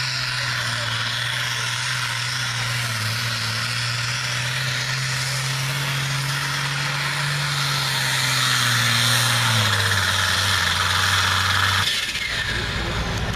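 Limited pro stock pulling tractor's turbocharged diesel engine running flat out under load while it drags the weight-transfer sled. The engine note steps down twice near the end as the tractor comes off the throttle at the end of its pull.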